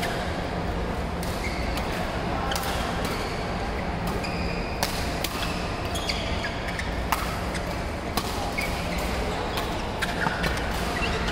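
Badminton rackets striking shuttlecocks, irregular sharp pops from several courts, with short high squeaks of shoes on the court flooring, over a steady hum of a large hall.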